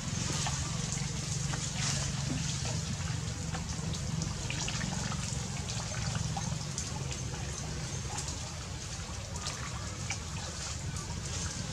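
Muddy river water trickling and lightly splashing as a macaque monkey climbs down into it and swims, with many small scattered splashes. A steady low hum runs underneath.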